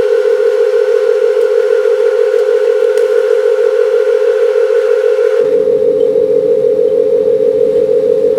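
A loud, steady electronic tone held unbroken at one pitch, like a dial tone. A fainter, higher tone sits over it until about five and a half seconds in, when a low hum comes in beneath.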